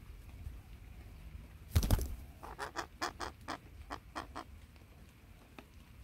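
Monk parakeets moving about a hollow-log nest: a loud double thump about two seconds in, then a quick run of about eight short, sharp sounds at roughly four a second.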